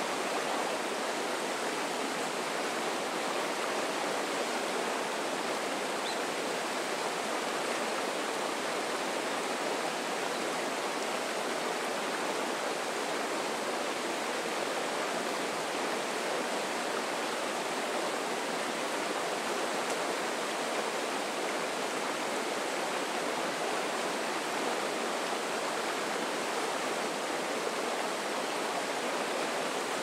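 Fast river rapids rushing over rocks: a steady, unbroken whitewater rush.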